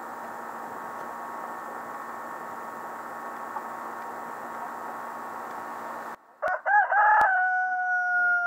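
A rooster crows once near the end: a broken, rising opening, then a long held note that ends sharply. Before it a steady background hum stops abruptly.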